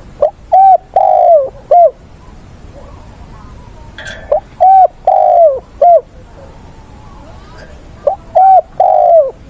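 Caged spotted dove, a decoy bird, cooing three times, each phrase a quick run of four notes with a longer falling coo near the end. A brief sharp high sound comes just before the second phrase.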